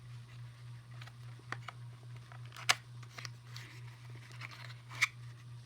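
A small cardboard accessory box being opened and its contents handled: light rustling with a few sharp clicks and taps, the loudest nearly three seconds in and another about five seconds in, over a steady low hum.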